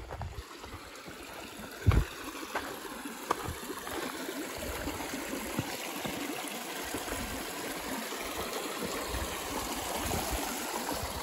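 Shallow stream running and trickling over rocks, a steady rushing that grows slowly louder. A few short knocks come in the first few seconds, the loudest about two seconds in.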